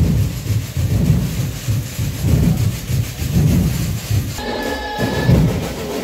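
Festival street-dance drum ensemble playing a steady driving beat of low bass-drum hits, about two to three a second, the low end overloading the phone microphone. A short held high tone sounds over the drums about four and a half seconds in.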